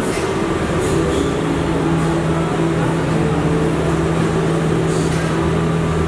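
Steady hum and rumble of factory machinery around a rubber compression molding press, with a few short sharp clatters or hisses.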